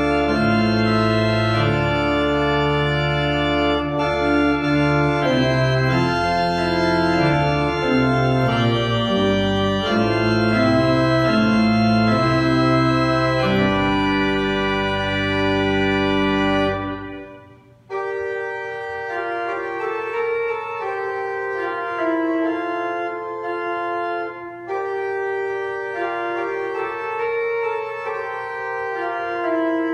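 Church organ playing sustained chords with a deep pedal bass. About 17 seconds in, the music breaks off briefly, then resumes on a lighter registration without the deep bass.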